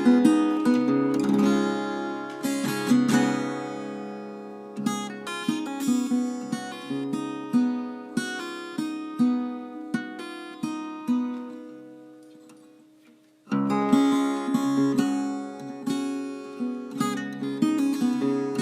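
Acoustic guitar background music, plucked and strummed notes; the notes die away to near silence about thirteen seconds in, then the music comes back in suddenly.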